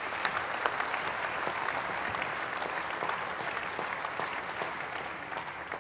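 Audience applauding, a steady patter of many hands clapping that dies down near the end.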